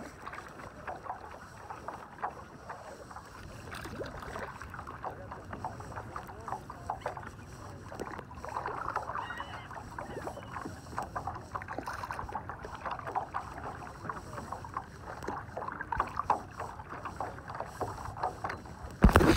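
Small waves lapping and splashing against the hull of a kayak on open water, an irregular patter of little splashes. A loud rumble breaks in near the end.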